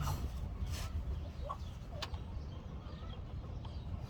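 A few faint, short bird calls over a low, steady hum, with one sharp click about two seconds in.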